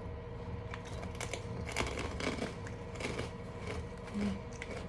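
Plastic snack packaging being handled, with light crinkling and scattered clicks and taps.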